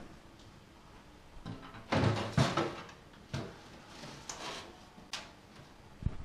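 Freezer drawer of a fridge-freezer being pulled open and its contents handled: a series of clunks and scrapes, the loudest about two seconds in.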